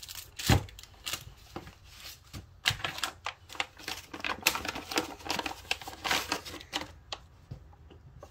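Thin plastic bag crinkling and rustling in irregular bursts as a pistol is unwrapped from it, with a single thump about half a second in as something is set down on cardboard.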